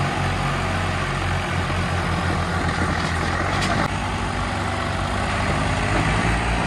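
Diesel engines of Swaraj tractors running steadily while the tractors pull against each other in a tug-of-war.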